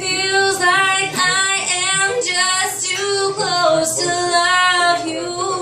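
A woman singing solo into a microphone, a run of long held notes with a wavering vibrato and no clear words.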